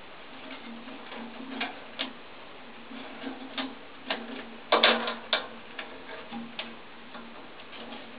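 Scattered light clicks and knocks of metal boiler pipe fittings being handled and worked by hand, with a cluster of louder knocks about five seconds in.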